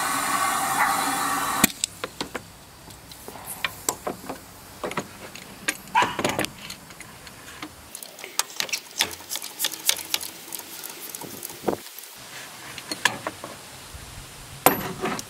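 Compressed air fed into cylinder 4 hissing steadily out through the intake, which means that cylinder's intake valve is open and it is not on its compression stroke; the hiss cuts off sharply about two seconds in. Then come scattered metallic clicks and knocks of hands and tools as the engine is turned over by hand.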